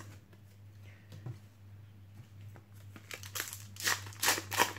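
Foil trading-card packet being torn open and crinkled by hand: a few sharp crinkles in the last second and a half, after a quieter stretch of faint card handling.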